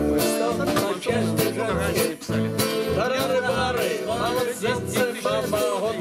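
A live band playing a song: strummed acoustic guitars, electric bass and piano accordion, with a man singing over them.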